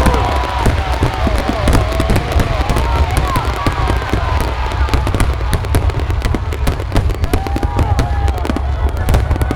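Fireworks going off in a dense run of short crackling pops, many a second, with crowd voices underneath.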